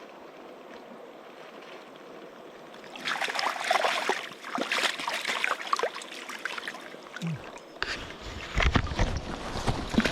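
River water running, then splashing and sloshing in the water from about three seconds in, with knocks and rumbling bumps near the end.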